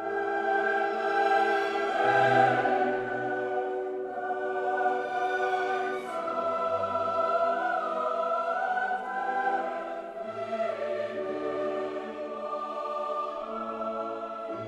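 Background music: choral singing with sustained, held chords and slow changes in pitch.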